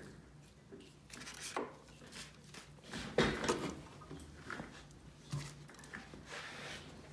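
Hands handling small objects on a wooden table top: scattered light knocks, taps and rustles, the loudest about three seconds in.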